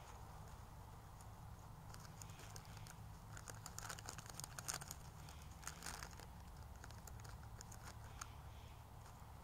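Faint crinkling and crackling clicks, thickest between about three and a half and six seconds in, over a steady low hum.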